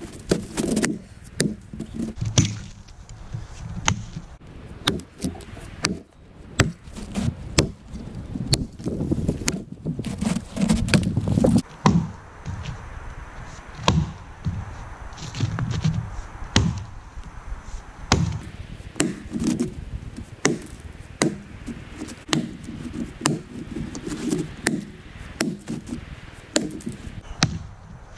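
Axe chopping into a felled log: repeated sharp strikes, one or two a second.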